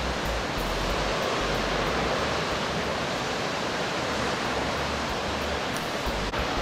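Steady hiss of sea surf breaking and washing against rocky cliffs and into a sea cave, with intermittent low rumbles of wind on the microphone.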